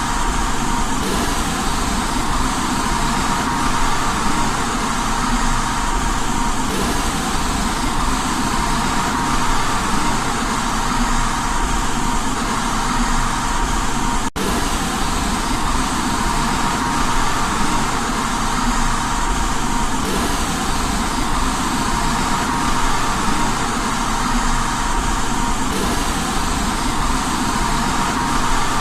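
Steady white noise for lulling a baby to sleep, even and unchanging, with a faint steady tone running through it. It cuts out for a split second about halfway through, likely where the loop repeats.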